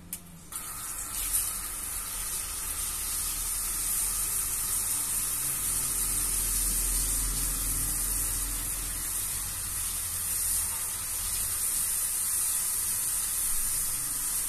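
Butter and chopped garlic sizzling in hot oil in an aluminium wok as they are stirred with a spatula. The steady sizzle comes up about half a second in.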